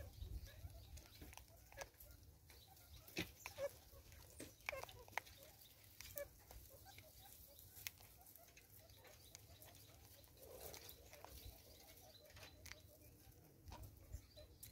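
Near silence in dry bush: faint scattered small clicks and ticks, with a few faint bird calls in the distance.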